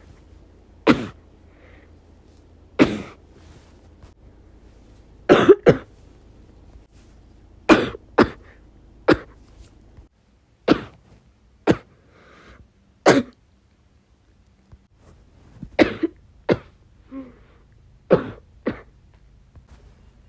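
A person with bronchitis coughing repeatedly: about fourteen short coughs, some single and some in quick pairs, a second or a few seconds apart. A couple of faint throat sounds fall between them.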